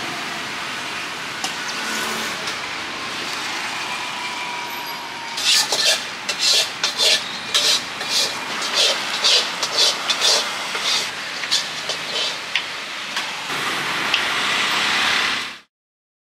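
Steady street traffic noise. From about five seconds in, a run of sharp scraping strokes by a utensil comes roughly twice a second for about eight seconds. The sound cuts off suddenly near the end.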